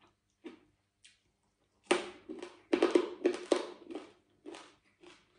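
Close-up chewing of crispy deep-fried pork belly: a few soft mouth sounds, then loud, irregular crunching from about two seconds in, roughly three crunches a second, easing off near the end.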